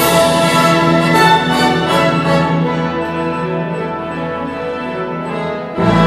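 Classical orchestral music played from a CD through a pair of Dali Helicon 400 MK2 loudspeakers, picked up by a microphone in the room. Full sustained chords sound throughout, and a new loud entry with heavier bass comes near the end.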